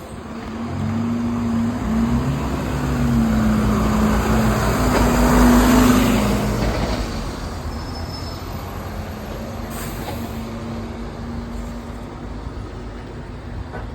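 A bus driving past: its engine note rises in level as it approaches, is loudest about six seconds in, then fades away as it moves off.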